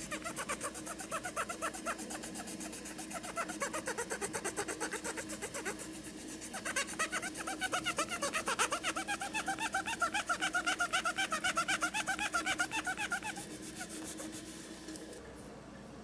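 Cotton swab scrubbed quickly back and forth inside an orange plastic mixer drum, a fast even run of rubbing strokes. In the middle stretch the strokes turn squeaky and louder, then they fade out near the end.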